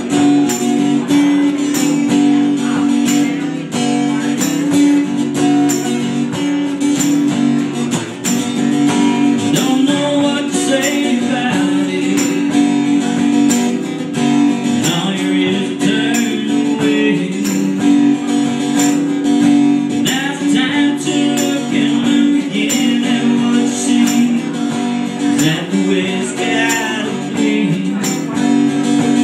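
Two acoustic guitars played live together, strummed in a steady rhythm with picked notes over it.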